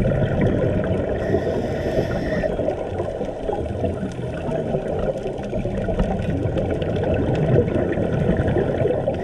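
Underwater sound picked up through an action camera's waterproof housing: a steady muffled rumble and crackle of water moving around the camera, with a scuba regulator breath hissing and bubbling about a second in.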